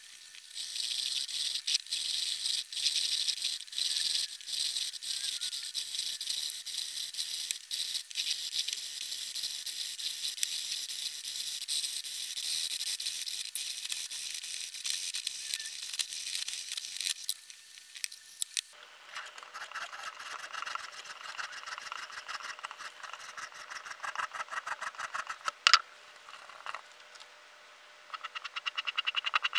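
Cylindrical diamond sharpening rod scraping along the serrated edge of a clamped bread knife in repeated strokes, a high-pitched rasp. About two-thirds of the way through the sound changes to a lower, coarser scraping with rapid clicks as the rod works over the teeth.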